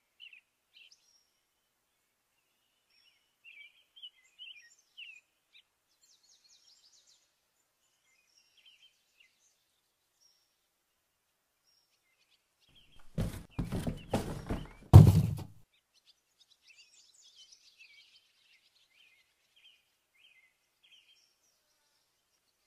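Small birds chirping faintly on and off. About halfway through comes a cluster of knocks and thumps lasting about two seconds, ending in one heavy thud: a cardboard box being handled.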